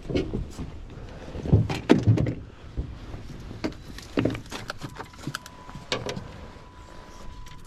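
A series of knocks and thumps, the loudest a cluster about two seconds in, with a steady thin high tone starting about two-thirds of the way through.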